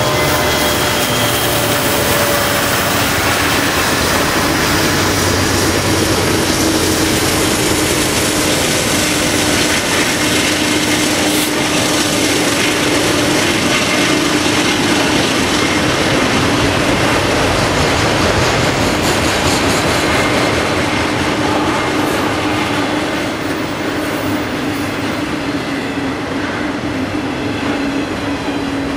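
Freight train autorack cars rolling past close by: steel wheels rumbling and clattering over the rails, with a steady squealing tone from the wheels. The sound eases a little near the end.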